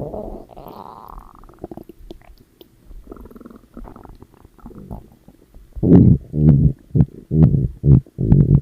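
Stomach growling: soft, low gurgles at first, then a run of loud, pulsing growls in the last few seconds.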